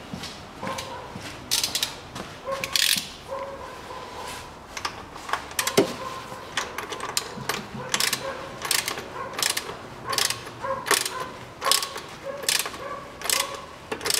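Ratchet wrench clicking in repeated short strokes, coming about once a second in the second half, as it screws the oil filter housing cap back onto the engine of a Lexus CT200h.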